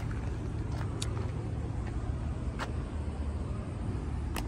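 Steady low outdoor rumble with a few brief sharp clicks, about one every second and a half.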